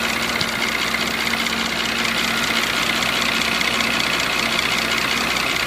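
Mercedes engine idling steadily with a fast, even knocking over the running noise, a knock put down to the piston group.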